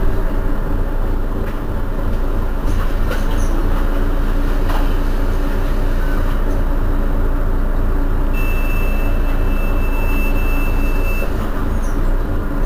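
Mercedes-Benz Citaro city bus engine idling steadily while the bus stands at a stop. About two-thirds of the way through, a steady high beep sounds for about three seconds.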